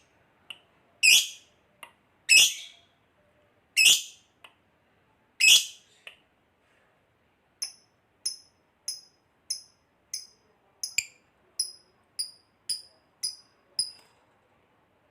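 Bird calls: five loud, harsh calls about a second and a half apart, then, after a short pause, about a dozen short, high chirps in quick, even succession.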